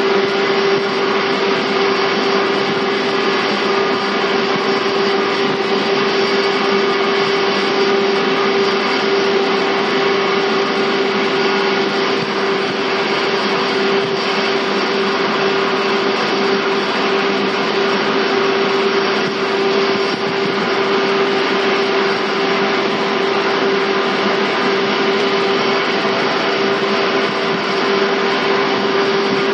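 485 series electric train heard from inside motor car MoHa 484, running at a steady speed: a constant rumble of wheels and running gear with a steady hum over it.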